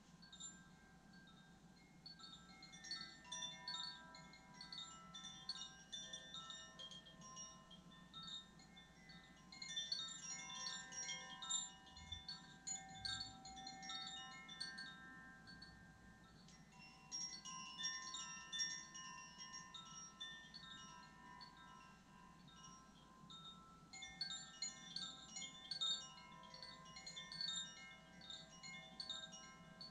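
Chimes tinkling softly in repeated swells, about four in all, each a shower of bright shimmering notes that rises and fades over several seconds, with a few longer ringing tones sounding beneath.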